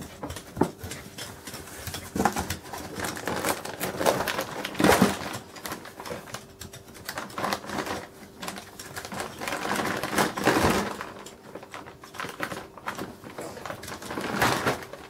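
Clear plastic bag of dried lamb tripe dog treats crinkling, with cardboard box flaps rustling, as a dachshund noses and tugs at the bag; irregular crackling with louder spells about five, ten and fourteen seconds in.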